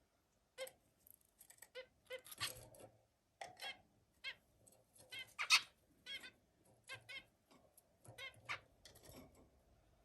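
Zebra finch calling and singing: a string of short, nasal, stacked-tone calls and brief song notes at irregular intervals, the loudest about five and a half seconds in.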